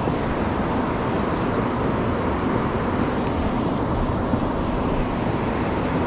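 Steady rush of river water running over rocky riffles, an even hiss with no breaks.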